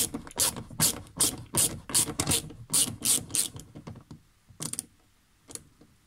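Socket ratchet fitted with a T20 Torx bit being worked back and forth to undo a screw, its pawl clicking in a quick run of about two to three clicks a second. The clicks thin out to a few scattered ones after about three and a half seconds.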